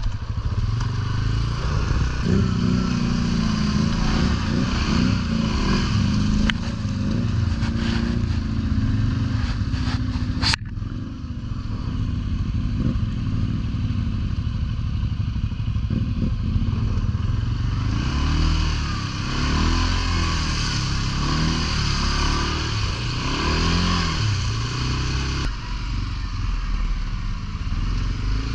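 ATV engine running on a trail ride, its pitch rising and falling again and again as the throttle is worked, with a single sharp knock about ten seconds in.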